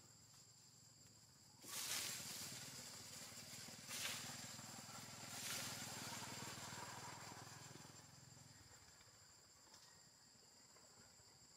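Steady high insect chorus at two pitches. Just under two seconds in, a louder rushing noise with a low rumble underneath sets in; it swells three times and fades out by about eight and a half seconds.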